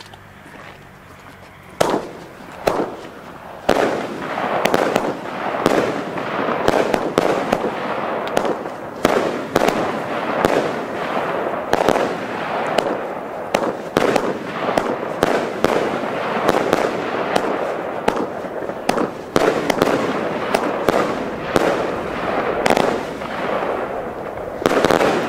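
Kamuro Kiss fireworks battery, a 500-gram, 25-shot cake of breaking shells, firing: a rapid string of sharp shot and burst bangs over a continuous rushing noise, the first shot about two seconds in.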